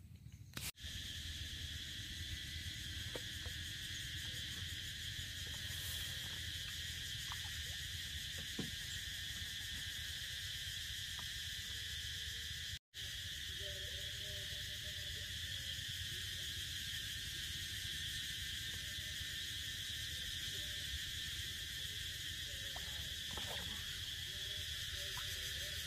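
Steady, high-pitched chorus of insects trilling continuously in the grass and trees, with no change in rhythm; it drops out for an instant about halfway through.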